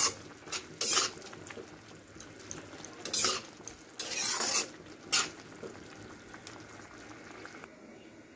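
Spatula stirring and scraping a thick bottle-gourd-leaf curry in a wok, in about five separate strokes, then quieter near the end.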